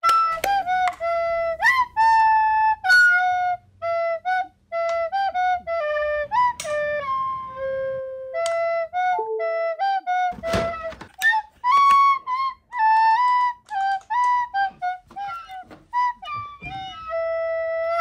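Solo flute-like melody playing as music: a quick run of short notes, some sliding up into the pitch, with brief pauses between phrases. A short rushing noise cuts in once, about ten seconds in.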